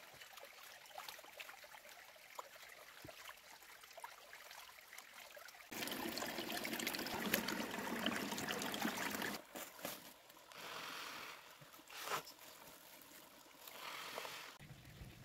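Water trickling and flowing, with a few small clicks. About six seconds in it grows much louder for several seconds, then breaks into short stretches that start and stop abruptly.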